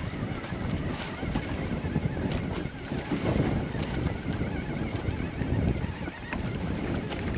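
Wind gusting on the microphone over choppy sea, with small waves lapping and splashing around a small open boat. No engine is running.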